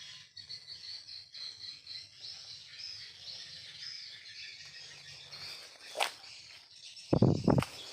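Edible-nest swiftlets twittering in a high, continuous chatter, with a sharp click about six seconds in and a couple of loud low thumps near the end.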